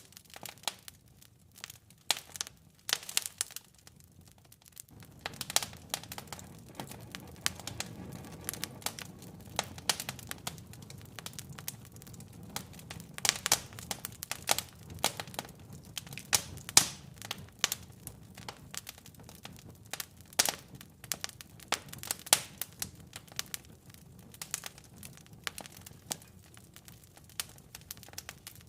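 Wood fire in a fireplace crackling, with irregular sharp pops of burning logs. About five seconds in, a low steady rumble of the flames joins the crackle.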